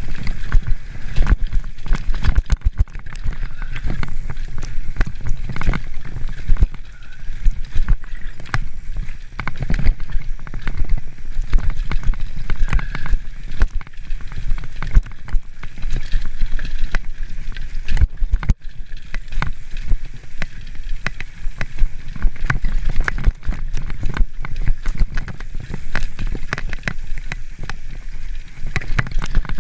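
Mountain bike riding fast down a rough dirt singletrack, heard from the rider's own camera: a constant irregular rattle and knocking of the bike over bumps over a steady low rumble.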